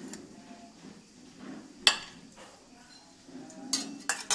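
Metal serving ladle clinking against a stainless steel pot and plate while food is dished out. There is one sharp clink about two seconds in and a quick run of three near the end.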